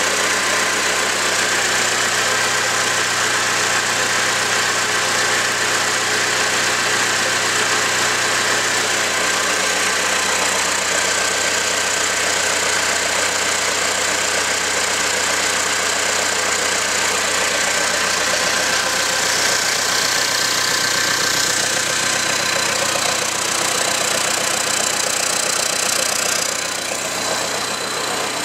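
Perkins 1104D four-cylinder diesel engine running steadily after an overhaul, fitted with a replacement Bosch fuel-injection pump. It is a little quieter near the end.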